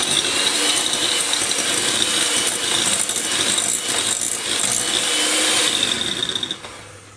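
Electric hand mixer running at speed, its beaters churning butter in a glass bowl, with a steady high motor whine. It winds down and stops near the end.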